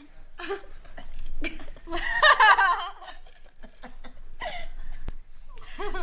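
Young women laughing and giggling, loudest about two seconds in, with a fresh burst of laughter near the end.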